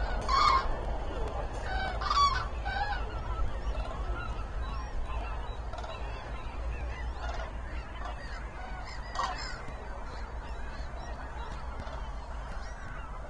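A large flock of common cranes calling: loud trumpeting calls from near birds about half a second in, at about two seconds and again near nine seconds, over a steady chorus of fainter, more distant calls.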